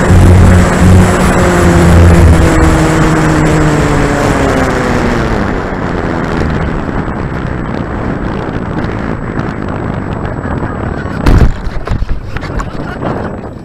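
The electric motor and propeller of an E-flite Corsair RC plane hum as the throttle is cut for landing, the pitch sliding slowly down and fading out after about six seconds. Heavy wind buffets the onboard camera's microphone throughout. About eleven seconds in there is a sharp loud thump as the plane touches down on grass, then a few smaller knocks and rattles.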